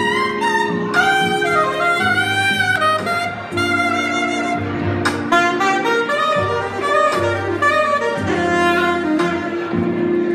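Curved soprano saxophone played live: a jazzy melody with vibrato over a recorded backing track of sustained chords and bass.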